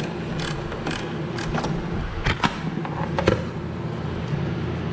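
A wrench working on the battery terminal, giving a scatter of short metallic clicks and knocks as the terminal is disconnected, the loudest about three seconds in. A steady hum runs underneath.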